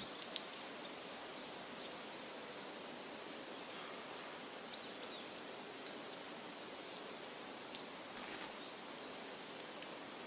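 Faint forest ambience: a steady hiss with occasional small, high bird chirps.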